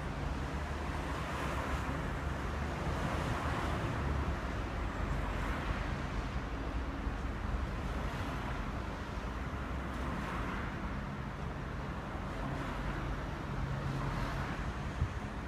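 Steady low vehicle rumble with wind noise on the microphone.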